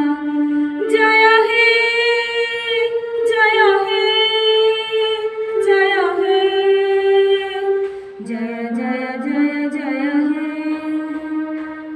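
A woman singing slow, long-held notes with vibrato, to a soft electronic keyboard accompaniment.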